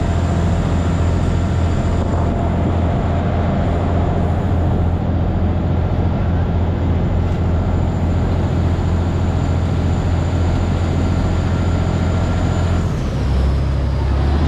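Diesel engine of a Chao Phraya Express river boat running steadily at cruising speed: a loud, deep drone with water rushing along the hull from the wake. About thirteen seconds in, the engine note drops lower.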